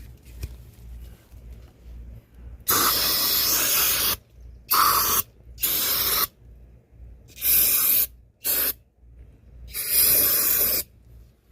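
Aerosol can of brake cleaner spraying in six hissing bursts, the first about a second and a half long, the rest shorter.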